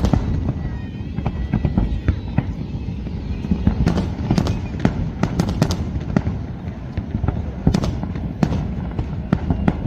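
Fireworks display: a dense, irregular run of sharp bangs and crackles over a continuous low rumble.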